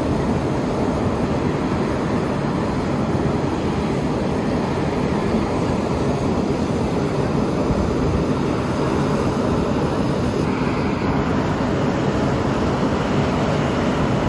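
Steady low rushing noise of steam pouring up from a boiling hot-spring pond, with no distinct events.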